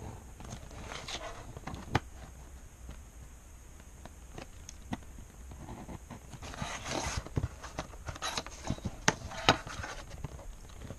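A pencil scratches in strokes along a clear plastic ruler on paper, and the ruler is shifted and set down with sharp plastic taps. The sharpest clicks come about two seconds in and twice near the end.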